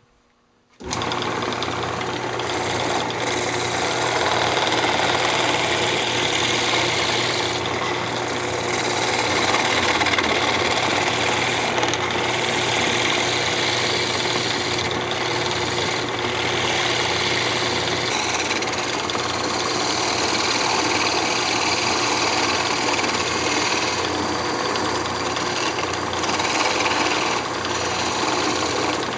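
Wood lathe switched on about a second in and running steadily, with the hiss of a hand tool cutting a spinning redwood blank down in diameter. The cutting noise eases briefly several times as the tool comes off the wood.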